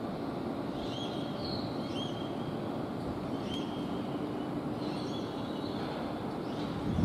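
Steady low rumble of outdoor city ambience heard from high up, with short high bird chirps repeating irregularly, about every second or so.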